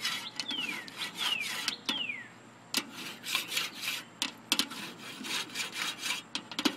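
A Billy Bar grate-cleaning tool scraping back and forth across the hot metal grates of a Primo ceramic charcoal grill, peeling off stuck-on chicken residue, in irregular rasping strokes a few times a second. Several high, falling squeaks sound in the first two seconds.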